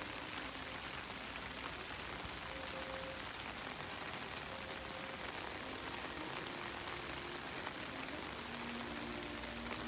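Steady rain falling on rose bushes, an even patter on the wet leaves and petals, with faint short tones here and there.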